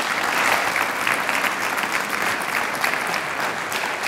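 Audience applauding: many hands clapping in a steady, dense patter that holds at an even level.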